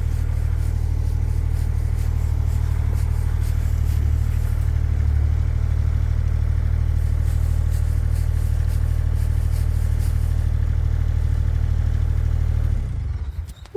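JCB mini excavator's diesel engine running steadily, with a deep even drone, then cutting off near the end.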